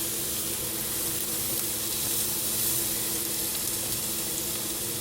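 Ground beef frying in a pan, sizzling steadily, with a faint steady hum underneath.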